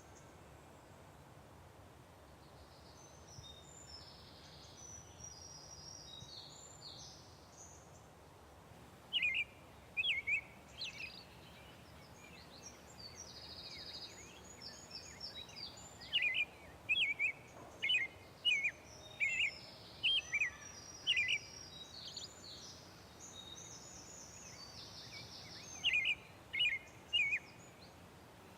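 Morning birdsong: several birds singing, with a fast twittering song and runs of loud, sharp rising chirps a few times, over a faint steady background hiss.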